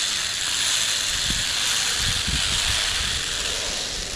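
Zipline trolley pulleys rolling along a steel cable while a rider is towed, giving a steady high hiss, with a few low rumbles of wind on the microphone.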